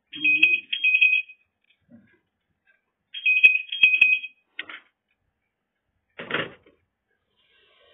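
Landline telephone ringing in a double-ring pattern, two trilling rings, a pause of about two seconds, then two more, before it stops as the handset is reached for. A short noise follows a little after six seconds.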